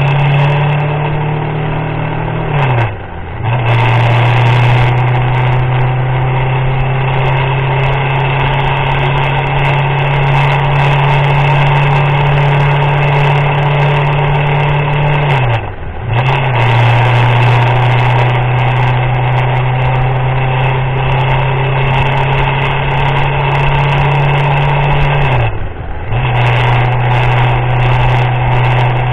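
A motorcycle engine running at a steady cruising pitch while riding. Its note dips briefly and comes back up three times. A steady rush of wind and rain noise runs underneath.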